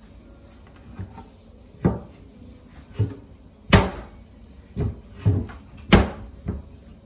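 Wooden boards knocking as they are handled and fitted together: about eight sharp knocks at uneven intervals, the loudest a little past the middle and about a second before the end.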